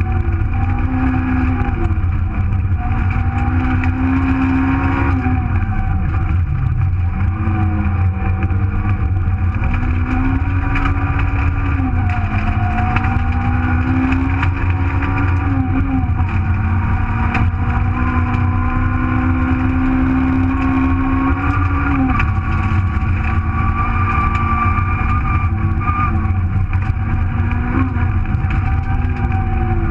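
Super1000 Nissan Micra rally car's engine heard from inside the car at full effort. It repeatedly revs up and drops back in pitch every few seconds as it goes through the gears, over a constant heavy road and tyre rumble.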